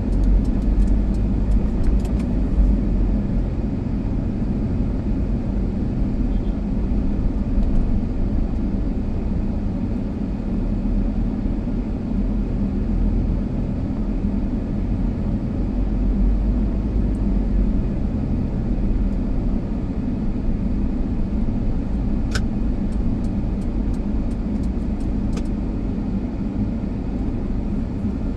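Car driving along, a steady low rumble of engine and road noise, with a couple of sharp ticks late on.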